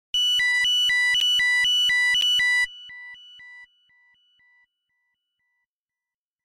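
Subway train door-closing warning chime. It is an electronic two-tone signal, high and low notes alternating quickly for about two and a half seconds, then dying away in fainter repeats. It signals that the doors are shutting.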